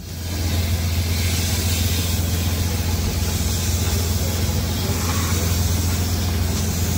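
A motor running steadily: an even low hum with a broad hiss over it.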